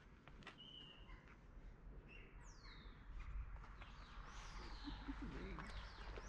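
Small birds calling faintly with high whistled chirps: a steady whistle about half a second in, and quick falling sweeps in the middle. Soft footstep taps sound now and then.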